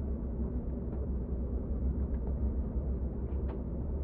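Steady low rumble of cabin noise aboard an Airbus A380 airliner, with a few faint ticks.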